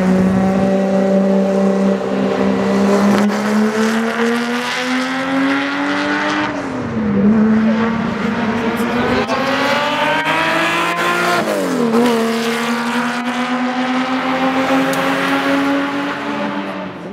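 Lamborghini Miura P400 S's V12 engine accelerating hard through the gears, its note climbing steadily, with two upshifts where the pitch drops, about seven and twelve seconds in. The sound fades out quickly at the very end.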